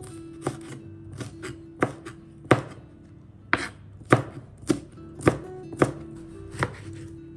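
Kitchen knife slicing red chillies on a plastic cutting board: a run of sharp knocks of the blade on the board, roughly one to two a second at an uneven pace.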